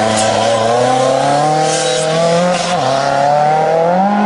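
Lancia Delta S4 rally car's supercharged and turbocharged four-cylinder engine under hard acceleration, pitch climbing steadily, dropping once at an upshift about three seconds in, then climbing again.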